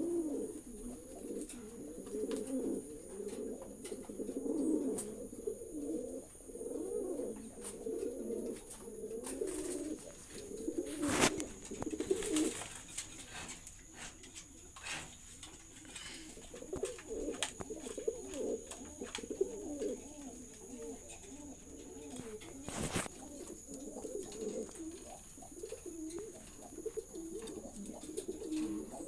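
Domestic pigeons cooing continuously, several birds overlapping in a steady low warbling. Two sharp knocks stand out, about eleven seconds in and again near twenty-three seconds.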